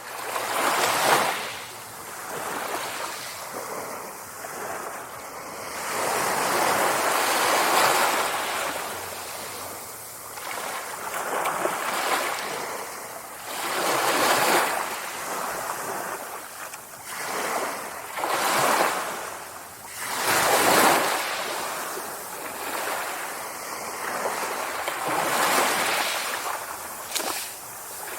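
Sea waves breaking and washing ashore, the surf swelling and fading in irregular surges every few seconds.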